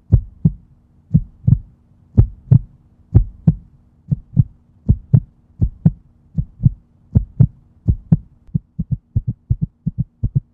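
Heartbeat sound effect: paired thumps about once a second that quicken from about eight seconds in into a faster pulse, over a faint steady low hum.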